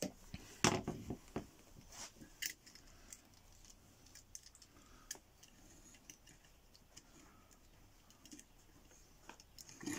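Scattered light clicks and taps of tools on a circuit board during desoldering, with a sharper knock under a second in and a few more in the first couple of seconds, then sparse faint ticks.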